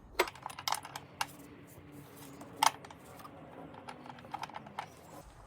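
Irregular sharp clicks and knocks of a metal battery hold-down clamp being worked back into place beside a car battery, about half a dozen in all, the loudest a little under three seconds in.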